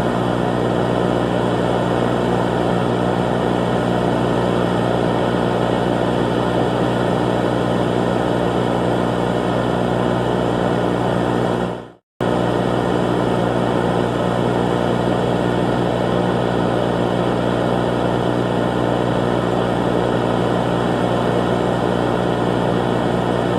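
A steady, unchanging droning hum with a buzzy edge, like a machine or engine held at one speed. It breaks off abruptly for a split second about halfway through, then carries on exactly as before.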